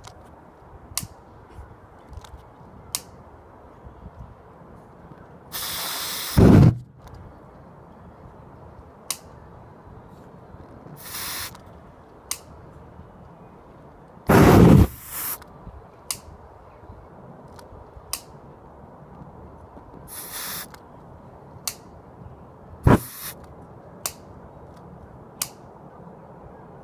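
An Axe body-spray aerosol can hissing in short sprays, several of them ending in a very loud burst, with one sharp bang about three-quarters of the way through. Small sharp clicks come every couple of seconds in between.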